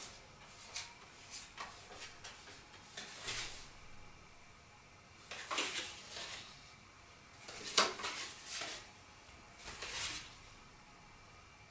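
Playing cards being handled and set in place for a card house: light scattered taps and clicks, with three short papery swishes of cards sliding in the hands.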